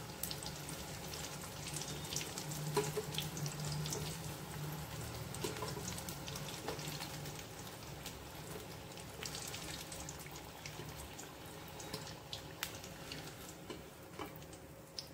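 Whole small brinjals frying in hot mustard oil in an aluminium kadhai on low flame: a steady soft sizzle with frequent small crackling pops, growing gradually quieter as the brinjals are lifted out of the oil.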